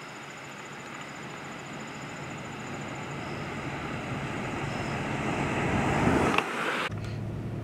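Road and engine noise heard from inside a moving vehicle's cab, a steady rumble that grows louder over about six seconds, then cuts off abruptly near the end to a quieter low hum.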